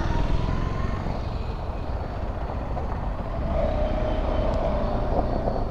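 KTM 390 Adventure's single-cylinder engine running at low speed under a steady rumble of wind and road noise, with another vehicle passing close by.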